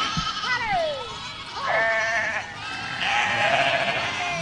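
A herd of goats bleating, many overlapping calls at once, one sliding down in pitch about half a second in.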